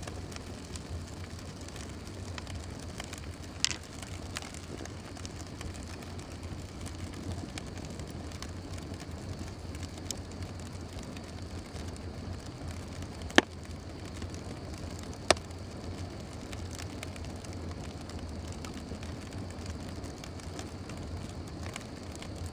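Fire burning with a steady hiss and light crackle over a low steady rumble, broken by three sharp pops: one a little under four seconds in, then two close together past the middle.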